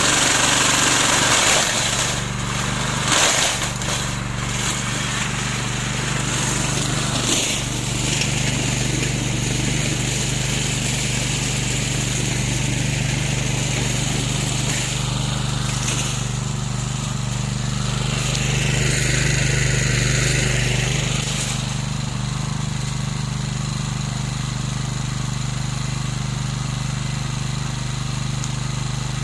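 Remote-controlled lawn mower running with a steady, even drone. A harsh hiss and a few knocks come in the first few seconds, and a rushing sound falls and rises again about two-thirds of the way through.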